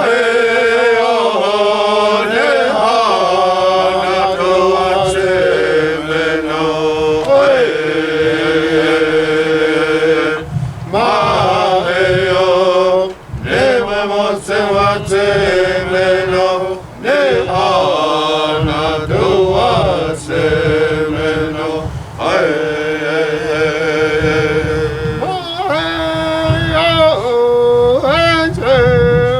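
A voice chanting a prayer song in long held notes that glide between pitches, with short breaks for breath.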